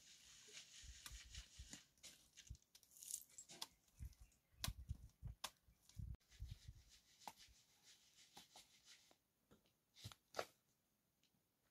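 Near silence broken by faint scattered clicks and soft thumps, with a few sharper ticks near the end.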